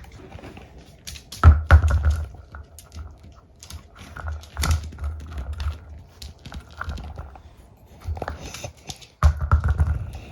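A small dog playing with an object on the floor: scattered clicks and knocks with a few louder low thumps.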